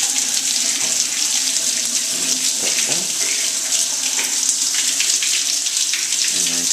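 Water running steadily into a urinal, a loud, even hiss of flowing water.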